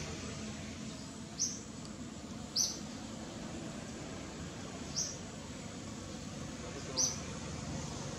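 A small bird chirping four times at uneven gaps, each call short and high, over a steady low background noise.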